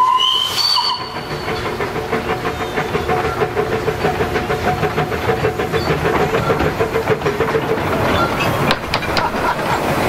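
Narrow-gauge steam locomotive giving a short whistle toot, then working its train past with a steady hiss and a rhythmic exhaust beat. Near the end its wheels click over the points.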